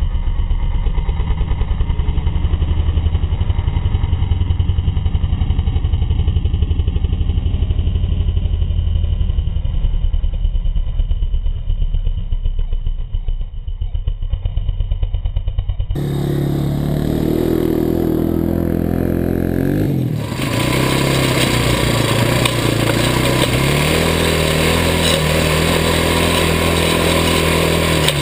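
Four-wheeler (ATV) engine running: a low, fast-pulsing rumble for the first half, then about halfway through the sound changes and the engine note rises and falls as it revs while riding.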